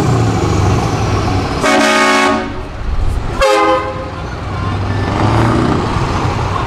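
Scania V8 truck engine with open exhaust pipes rumbling at low speed, broken by two short truck horn blasts, about two and three and a half seconds in.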